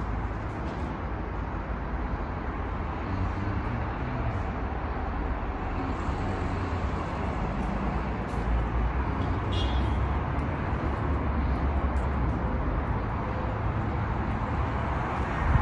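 Steady low rumbling background noise with a hiss over it, swelling slightly around the middle, with a few faint ticks.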